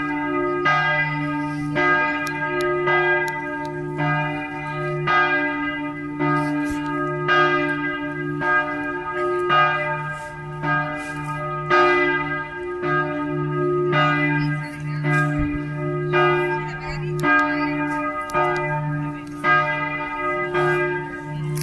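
Church bell struck repeatedly with a hammer (campana a martello), about three strokes every two seconds, each stroke ringing on into the next.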